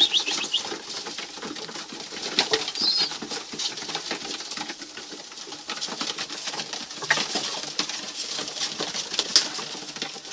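Young tippler pigeons in a loft: a brief high squeak about three seconds in, the begging squeak of youngsters only just off the nest, among wing flaps and small scuffling knocks as the birds move about.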